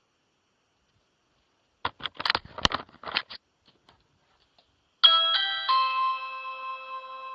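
A short flurry of knocks and scrapes, then about five seconds in an electronic doorbell chime sounds: three notes struck in quick succession that ring on and slowly fade.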